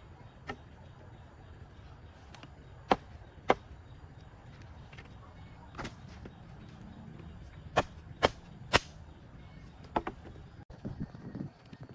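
Sharp chopping knocks in short runs: two half a second apart, a single one, then three in quick succession, with softer clustered knocks near the end, over a steady low background hiss.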